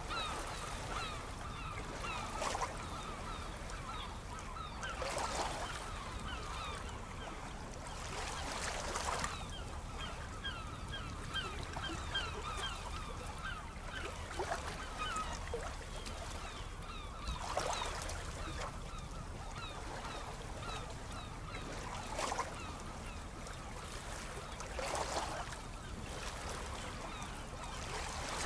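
Sea waves washing in every few seconds over a steady low surf rumble, with a flock of birds giving many short calls throughout.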